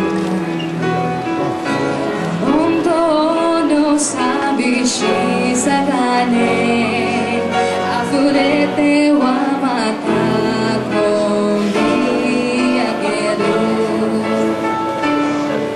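Live song performance: a female voice singing a slow ballad over piano and guitar accompaniment.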